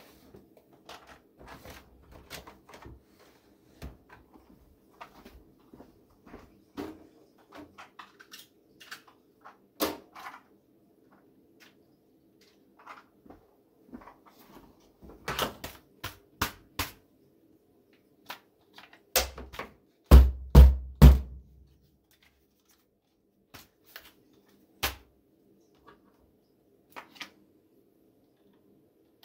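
Someone rummaging off-camera for batteries: scattered clicks and knocks, with a run of heavy thumps about twenty seconds in, like drawers or cupboard doors being shut.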